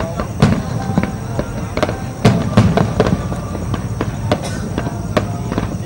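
Aerial fireworks display: shells bursting in a quick, uneven series of sharp bangs and crackles. The loudest bangs come about half a second in and a little over two seconds in.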